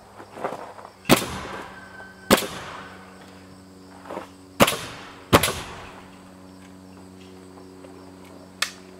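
A handful of sharp knocks or snaps, unevenly spaced, the loudest a little over a second and about five seconds in, over a steady low hum.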